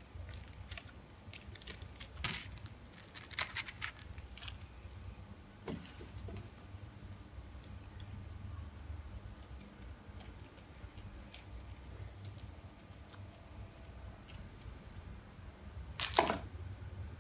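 Small handling sounds as plastic noodle-seasoning sachets are pulled apart and snipped open with kitchen scissors: scattered crinkles and clicks, busiest in the first few seconds, over a low steady hum. A single sharp knock about sixteen seconds in is the loudest sound.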